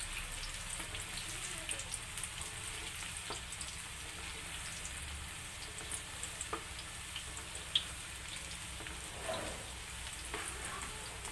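Pieces of tempeh deep-frying in hot oil in a metal wok: a steady sizzle with scattered small pops, stirred with a wooden spatula, and one sharper pop about eight seconds in.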